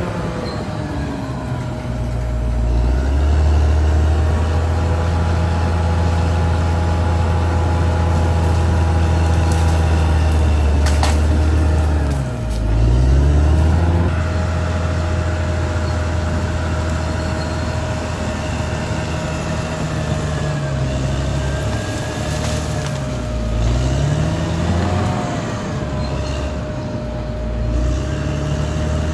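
Caterpillar D6R XL bulldozer's diesel engine running under load. Its revs dip and recover several times, over a steady whine, with a sharp clank about eleven seconds in.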